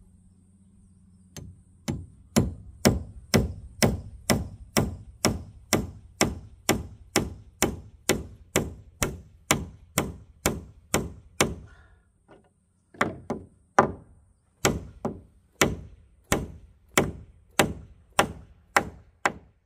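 A hand tool striking wood again and again, about two blows a second, with a short break about twelve seconds in before the blows resume.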